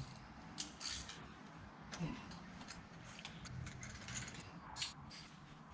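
Faint, irregular metallic clicks and ticks from hand tools working on the spark plugs with a 16 mm plug socket.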